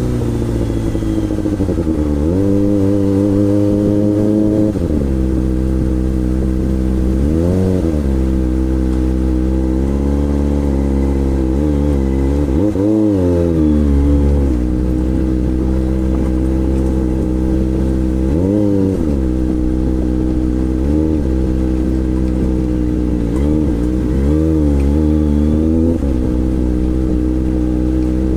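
Kawasaki ZX-25R's 250 cc inline-four engine running, with a short rev or blip of the throttle about every few seconds, the pitch rising sharply and then falling back to a steady lower note.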